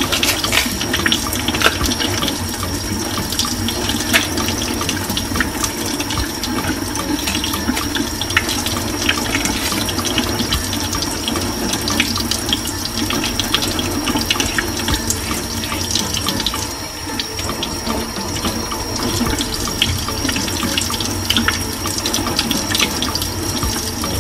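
Kitchen tap running steadily into a stainless steel sink, the water splashing on the steel and over green bananas being peeled under the stream, with scattered small clicks throughout.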